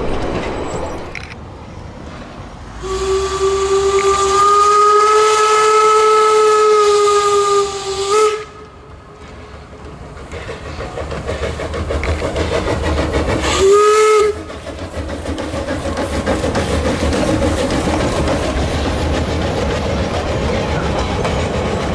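Steam locomotive whistle: one long steady blast of about five seconds that cuts off sharply, then a short blast some five seconds later. After that the locomotive and its carriages run past with a steady rumble.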